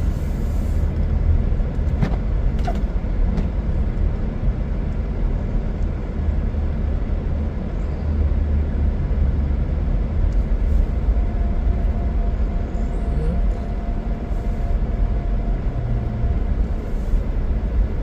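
Car driving, heard from inside the cabin: a steady low engine and road rumble, with a couple of brief clicks about two seconds in.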